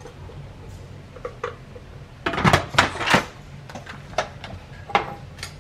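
Electric pressure cooker lid being set on the pot and turned shut: a quick cluster of metal clatters and knocks, then two single clicks.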